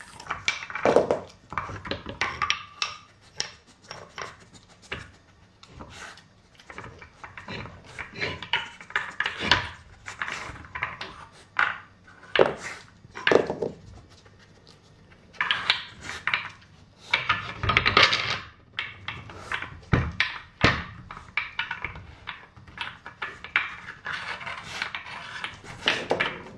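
Wooden dog puzzle toy, a My Intelligent Dogs 'Smile', being worked by a dog: irregular wooden knocks, clacks and rubbing as its pieces are nudged and slid, with a few louder knocks scattered through.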